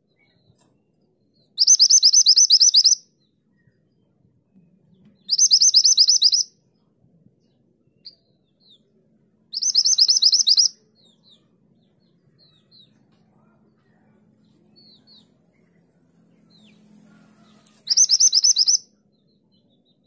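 Minivet singing: four loud, rapid high-pitched trills of 'tulit' notes, each about a second long and spaced a few seconds apart. A few faint short chirps come between the third and fourth trills.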